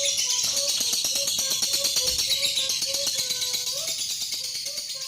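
Male lovebird's long 'ngekek' chatter: a fast, high, buzzing rattle of rapid notes held without a break, growing slightly weaker towards the end.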